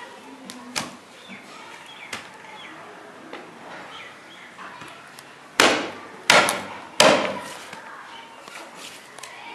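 Meat cleaver chopping meat and bone on a wooden stump chopping block: a few light knocks, then three hard chops in quick succession a little past halfway.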